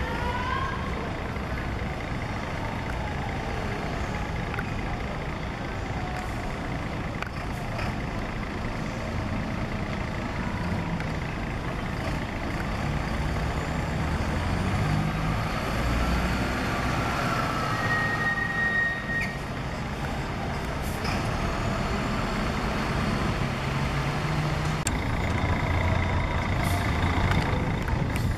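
Diesel engine of an intercity coach bus running as it drives slowly across the station forecourt, its low rumble swelling twice, with a brief high squeal about two-thirds of the way through.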